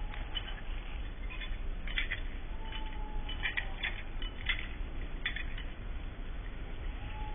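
Light clinking of a dog's collar hardware at irregular moments as a Siberian husky walks, over a steady low rumble. A few faint short tones also sound, falling slightly in pitch.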